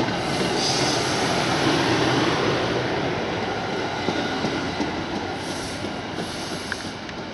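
Train running on rails: a steady rumble of wheel and rail noise with some wheel squeal. It is loudest about two seconds in, then slowly fades.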